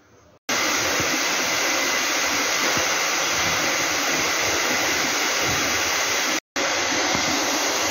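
A loud, steady rushing noise, like an air blower, starts abruptly about half a second in. It cuts out briefly about six and a half seconds in, then carries on unchanged.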